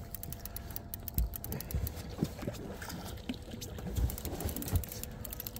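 A trolling reel being cranked in with a fast run of fine ticks, over the steady low running of the boat's outboard motor at trolling speed. A few dull low thumps come through as well.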